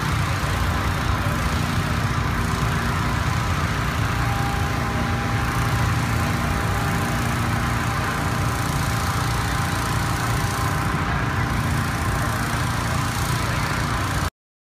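Steady, loud, engine-like rumble that stops abruptly near the end.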